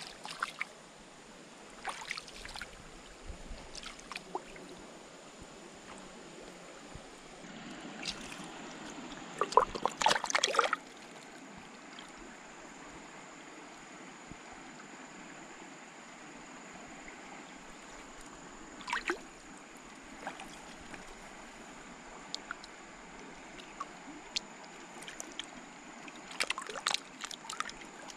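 Water trickling steadily, broken by short flurries of splashing and sloshing as a large catfish stirs in a small muddy water-filled hole. The loudest flurry comes about ten seconds in, with smaller splashes later.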